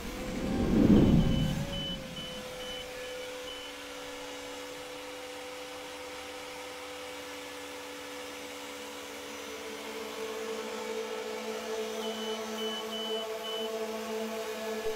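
Heavy construction machinery running with a steady engine hum, while a reversing alarm beeps in two short runs, starting about a second in and again about twelve seconds in. A brief low rush swells up about a second in and is the loudest sound.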